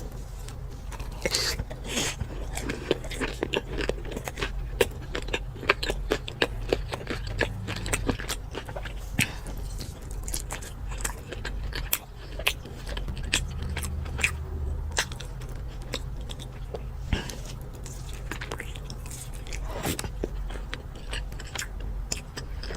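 Close-miked eating: crunchy bites and chewing of fried food, with many sharp crackling clicks throughout.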